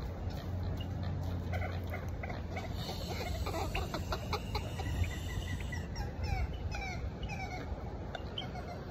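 A bird calling in a quick series of short notes, several sliding down in pitch, over a low rumble of wind on the microphone.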